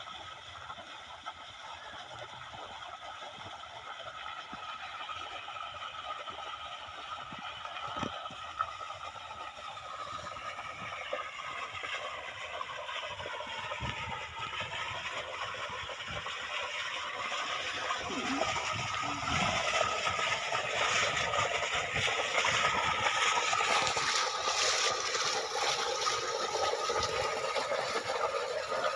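Water from a solar submersible pump's outlet pipe gushing out in an arc and splashing onto muddy ground, a steady rushing splash that grows louder toward the end.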